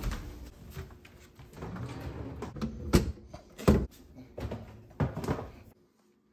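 Knocks and clunks of a lower kitchen cabinet and its pull-out shelf being opened, and a heavy enameled cast-iron casserole pan being set onto the shelf. The two loudest knocks come about three seconds in, close together, and another follows near five seconds. The sound cuts off suddenly shortly before the end.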